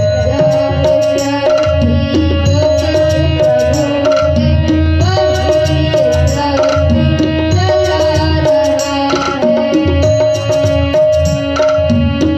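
Live Hindi devotional bhajan: a boy's singing voice over tabla and keyboard, the tabla keeping a steady rhythm under a sustained keyboard tone.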